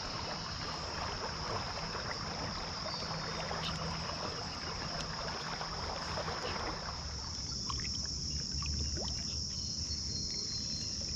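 Steady high-pitched drone of insects, with the rush and slosh of creek water beneath it that drops away about seven seconds in.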